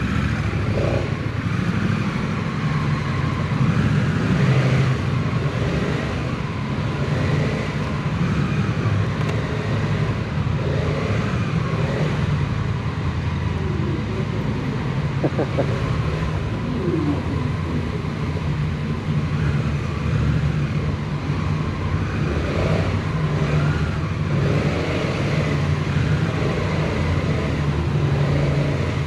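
Motorcycle engine running at a steady pitch, heard from the bike while riding.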